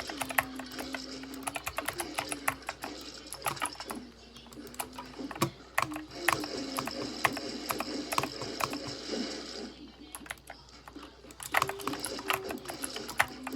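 Typing on a computer keyboard: quick, irregular key clicks that ease off twice, about four seconds in and again about ten seconds in, with music playing underneath.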